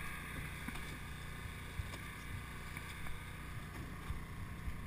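Steady low engine drone aboard an electrofishing boat, with a few short knocks and clicks from the deck.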